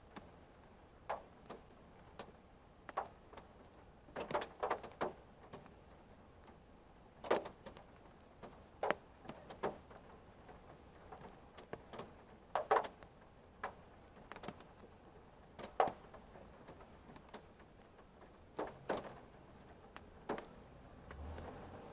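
Irregular sharp taps of raindrops hitting a parked car, heard from inside the car, now single and now a few in quick succession. A low rumble builds near the end.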